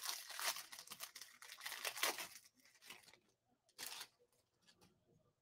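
Foil wrapper of a football trading card pack tearing and crinkling as it is ripped open, then one more short rustle a little over a second later.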